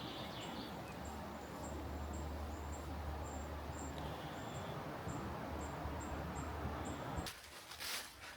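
A short high chirp repeating about twice a second over a steady outdoor hiss and low rumble. About seven seconds in the background drops away and a few sharp rustling strokes follow.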